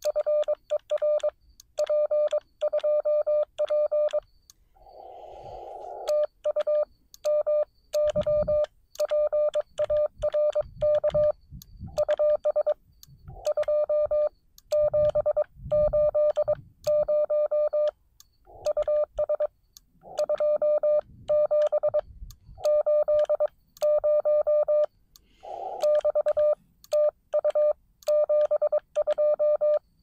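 Morse code from the Xiegu X6100 transceiver: a single steady mid-pitched note keyed on and off in quick dots and dashes, in groups separated by short pauses. Several brief bursts of radio static fall between the groups.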